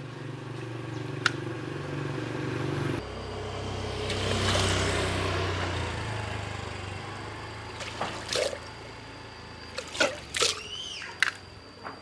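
Washing-machine motor stator run as a homemade pump, humming on mains power; about three seconds in the hum changes and water rushes and splashes out of its steel pipe, then dies away. A few sharp clicks and knocks follow near the end.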